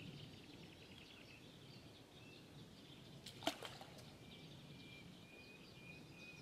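Faint birdsong, small birds chirping, with a quick pair of sharp clicks about halfway through and a thin steady high note in the second half.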